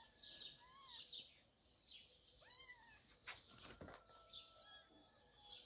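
Kittens mewing faintly: a few short, high-pitched mews.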